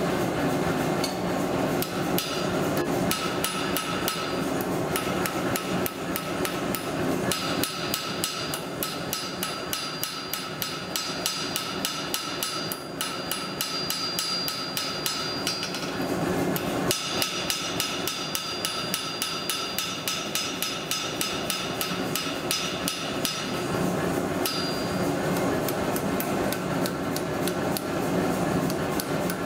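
Blacksmith's hammer striking a hot steel bar on an anvil in a fast, steady rhythm, each blow ringing off the anvil, with a short break about halfway through.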